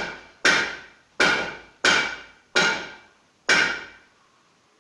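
A series of sharp knocks, like hammer blows, about two-thirds of a second apart, each ringing briefly; the last comes about three and a half seconds in.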